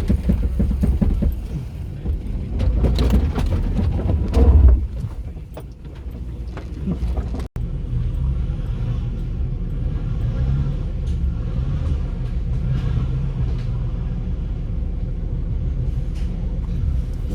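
Four-wheel-drive vehicle on a rough track: low engine rumble with knocks and rattles for the first few seconds, then, after a brief dropout about seven seconds in, a steady engine drone.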